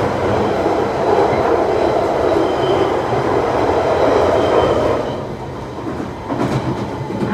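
Central line 1992 Stock Tube train running in a tunnel, heard from inside the carriage: a loud, even rumble that drops away about five seconds in as the train comes out into the open. After that the wheel and rail noise is quieter, with a few sharp clicks.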